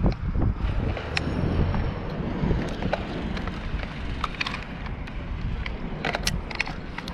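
Stihl chainsaw idling, a low steady running, with wind on the microphone and a few sharp clicks.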